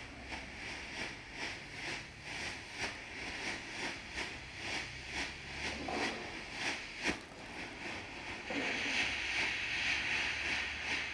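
Pyrorauch XL800 smoke generator hissing as it pushes out a dense cloud of smoke, pulsing in quick puffs a few times a second, with one sharper pop about seven seconds in. The hiss grows louder about eight and a half seconds in.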